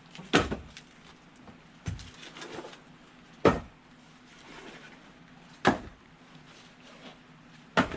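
Split firewood being thrown onto a stack: five separate wooden knocks, one every second or two.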